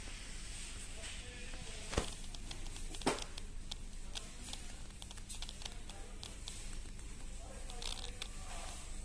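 Shop ambience: a steady low hum with faint distant voices and scattered small clicks and rustles. Two sharp knocks stand out, about two seconds in and again a second later.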